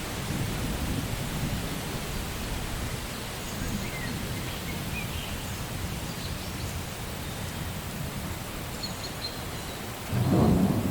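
Steady rain with thunder rumbling low, fading after the first couple of seconds. A few faint bird chirps come through the rain. Near the end a sudden, louder thunder crack.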